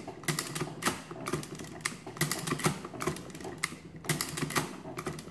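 Sundstrand adding machine's mechanism being cycled over and over: a fast, uneven clatter of metal clicks and clacks as the ribbon is run through its auto-reverse.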